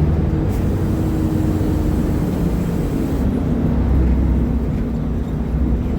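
Diesel engine of a Mercedes-Benz O500UDA superarticulated bus with a ZF automatic gearbox, running steadily under way with a low rumble. Its note shifts to a slightly lower pitch about three seconds in.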